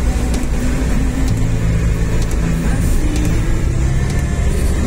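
Car cabin noise while driving on a wet road in heavy rain: a steady low engine and tyre rumble under the hiss of rain and tyre spray.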